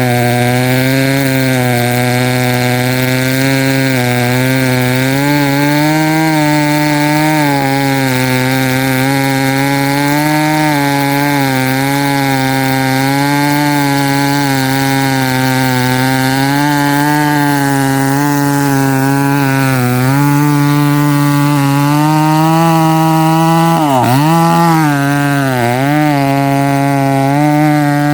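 Chainsaw engine running at high revs while cutting into a thick tree trunk, its pitch wavering a little with the load. Near the end the engine note dips sharply and recovers three times.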